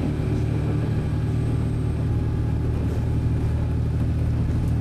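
Diesel railcar running steadily with a low engine hum and the rumble of the moving train, heard from inside the passenger cabin.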